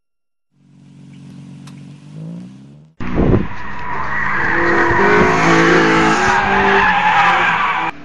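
A car engine running quietly, rising slightly in pitch, then from about three seconds in, loud continuous tyre squeal as a car slides sideways on asphalt, with its engine running underneath.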